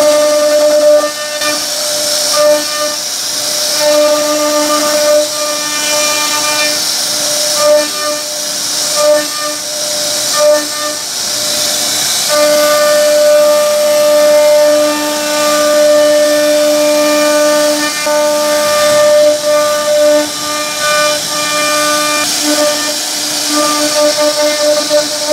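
CNC router spindle whining at high speed as its bit carves grooves into a wooden bed panel, with the hiss of the cut. The whine keeps breaking off and resuming as the bit moves through the wood, and holds steady for several seconds about halfway through.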